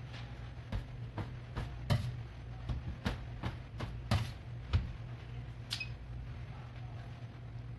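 Plastic bench scraper chopping through brioche dough and knocking against a stainless steel counter: a series of sharp taps over the first five seconds. A single short beep near the end, as the digital kitchen scale is switched on, over a steady low hum.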